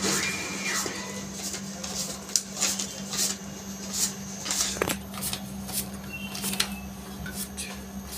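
ATM cash dispenser and printer mechanism working through a withdrawal: a run of quick rustling clicks, two or three a second, over a steady electrical hum.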